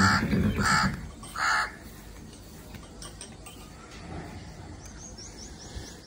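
Three short, harsh animal calls, about three-quarters of a second apart, followed near the end by a run of faint, quick, high chirps.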